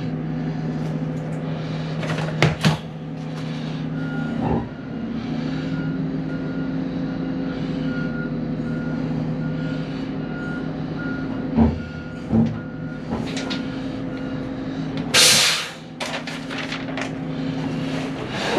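Oshkosh Striker fire truck's diesel engine running steadily, heard from inside the cab, with a backup alarm beeping at a steady rate for much of it and a few knocks. About fifteen seconds in comes a short, loud hiss of air from the air brakes.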